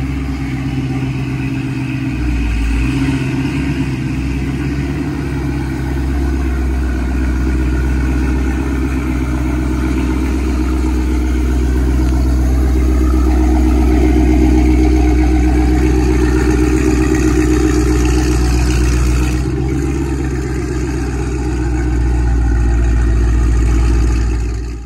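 2018 Dodge Charger Scat Pack's 6.4-litre Hemi V8 running near idle as the car is driven slowly and parked. A steady low exhaust note swells a little about halfway through.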